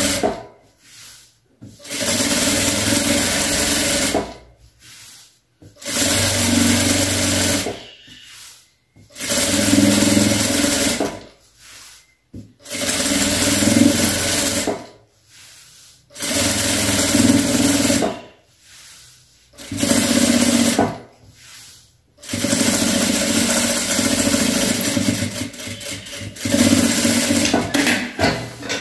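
Electric sewing machine stitching through patchwork fabric and lining in stop-start runs of a few seconds each, about ten runs with short pauses between, as the fabric is straightened under the presser foot.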